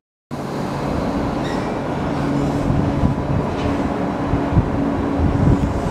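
JR West 221 series electric train pulling out of the station, its wheels and motors making a steady low rumble with a few sharp knocks. The sound cuts in after a brief moment of silence at the start.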